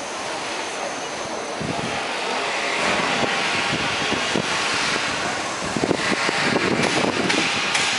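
Wet city pedestrian street ambience: a steady noisy hiss, growing louder in the second half, with scattered short knocks and clatter from about six seconds in.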